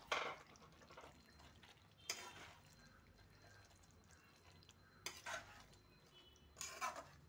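Metal spatula stirring a thick potato curry in a metal kadai: a few short scrapes and clinks against the pan, one to three seconds apart, with quiet between.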